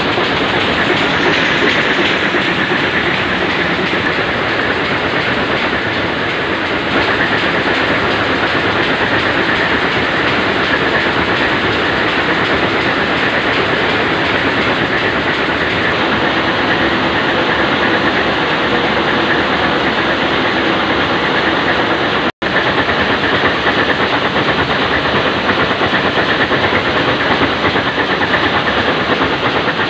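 Ship's main diesel engine running, a loud, steady engine-room noise; the sound cuts out for an instant about two-thirds of the way through.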